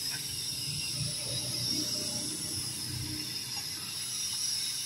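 Car-wash equipment running: a steady hiss with a high, even whine, from the pressure-washer water spray and the wet/dry vacuum.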